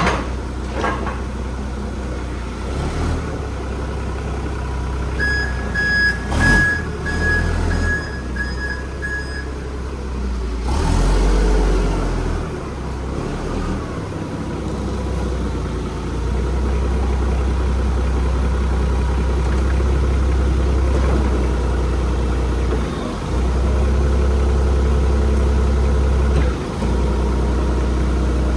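Heavy equipment's engine running, with its reversing alarm beeping repeatedly for about four seconds early in the run. The engine gets louder about halfway through and stays there.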